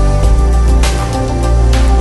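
Electronic intro music with sustained notes over a heavy bass line, punctuated by sharp percussive hits about a second apart.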